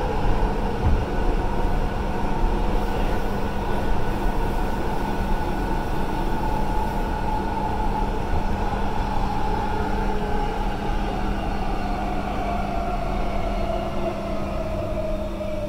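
Queensland Rail EMU electric train running, heard from inside the carriage: a steady low rumble with a constant hum and a whine that falls in pitch over the last few seconds.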